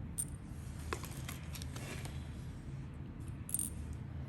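A few faint, scattered clicks and taps of small metal parts being handled: the balls and pieces of a zirconium and brass fidget slider being fitted back in by hand.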